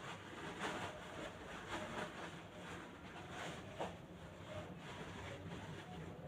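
Faint, scattered short chirps and scratchy sounds from small pet birds, over a steady low hum.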